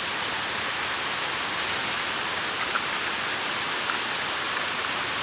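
Heavy rain falling steadily: a constant hiss with scattered ticks of drops.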